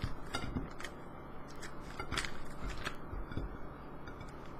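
Plastic sausage packaging crinkling and crackling under a hand, in a handful of short, separate crackles over a faint steady hum.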